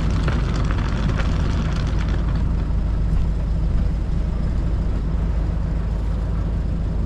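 Sailboat's inboard diesel engine running steadily, a deep even hum, with a few light clicks and rattles in the first couple of seconds.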